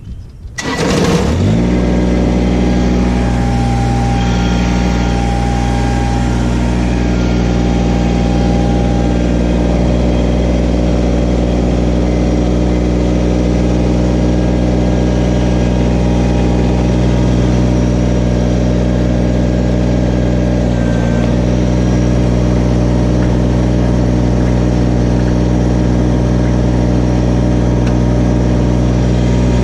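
Kubota BX1860's three-cylinder diesel engine cranks and catches about a second in, then runs steadily at an even idle.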